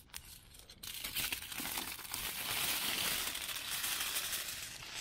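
Aluminium foil crinkling and rustling as a sheet is handled and spread out. It starts about a second in as a dense, crackly rustle.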